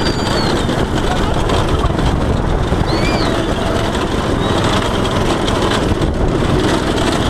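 Go-kart driving over rough field ground: the engine running under way, buried in heavy wind rush and the rattle and jolting of the kart picked up by a helmet-mounted camera.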